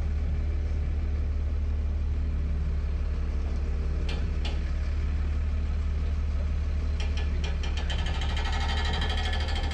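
Crane truck's engine running steadily with a low hum, a couple of sharp clicks about four seconds in, and a rattling hiss of the crane's machinery over the last couple of seconds.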